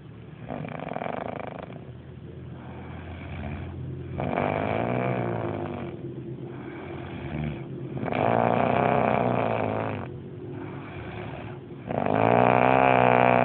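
A person snoring: a rasping snore on each breath, the loud ones coming about every four seconds and growing louder toward the end, with softer snoring between them.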